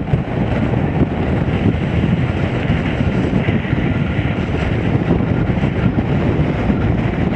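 Strong wind blasting across the camera microphone, a continuous loud rumbling rush that surges and dips with the gusts, just like a wind tunnel.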